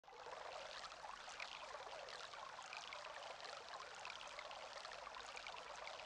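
Faint running water, a steady trickling flow.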